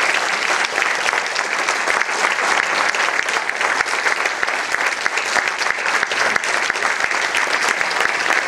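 Audience applauding, dense and steady clapping from many hands.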